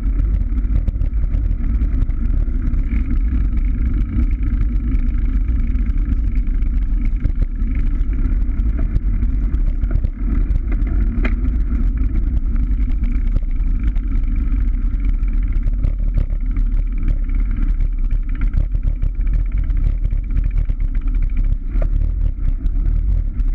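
Steady, loud wind rumble buffeting the microphone of an action camera mounted on a road bicycle while riding.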